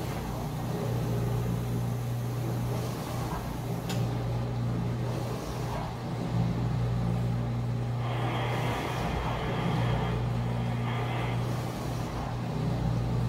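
A steady low hum runs throughout, with soft scraping from a butter knife spreading cheese filling along a lasagna noodle; the scraping grows a little brighter from about 8 to 11 seconds in.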